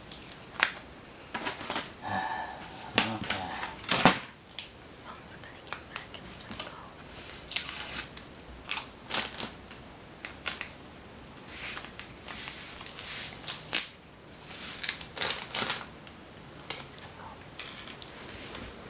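Packaging being untaped and handled: tape and cardboard tearing, scraping and rustling in irregular short strokes.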